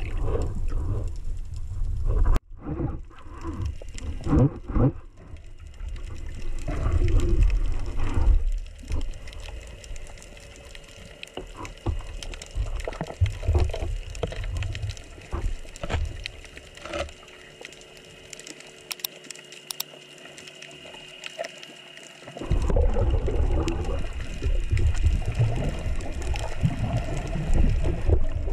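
Water heard through an underwater camera housing as a spearfisher swims: low, muffled rushing and sloshing with scattered clicks. It drops off suddenly a couple of seconds in, stays quieter with faint steady tones through the middle, and the low rushing comes back strongly about three quarters of the way through.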